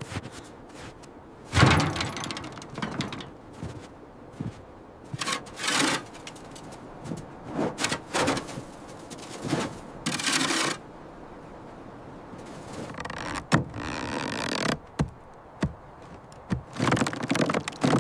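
Irregular wooden thunks and knocks mixed with short scraping and rubbing strokes: timber being handled and worked by hand.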